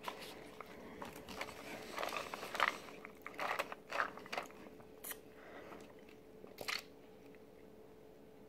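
Faint mouth sounds of drinking through a straw: a series of short, soft sips and swallows, spread over several seconds.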